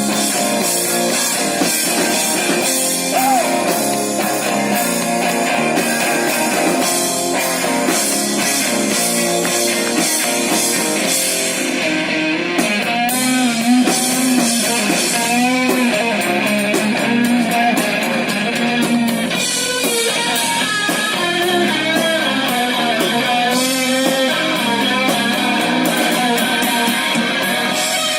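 Live rock band playing an instrumental passage: guitar carries the melody over drums.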